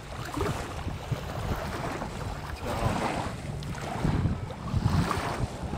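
Wind buffeting the microphone over a choppy lake, with small waves lapping at the bank.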